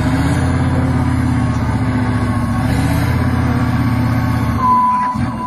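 Tatra trial truck's diesel engine working hard under load in deep mud, a steady, loud low drone puffing black smoke, easing off near the end. A short high whistle sounds just before it drops.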